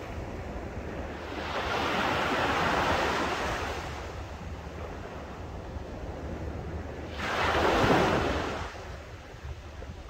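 Small waves breaking and washing up on a sandy beach, two swells of surf: a broad one a second or so in and a shorter, louder one about seven seconds in. Wind rumbles on the microphone underneath.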